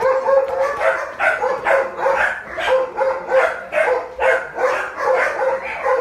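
Doberman barking rapidly and repeatedly, about three barks a second without a break.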